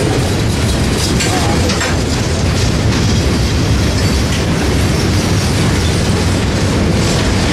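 Freight train of gondolas and covered hoppers rolling past at steady speed: a constant low rumble of steel wheels on rail, with scattered clicks as the wheels cross rail joints.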